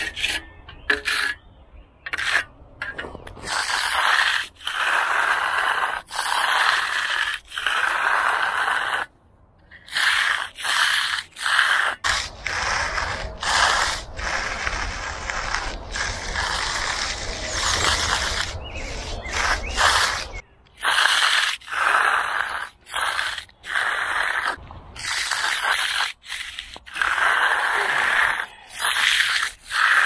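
Hand trowel scraping over the fresh, still-soft concrete at the slab edge in repeated strokes, each a second or two long with short pauses between, as the edges are troweled smooth. A low rumble runs under the strokes in the middle stretch.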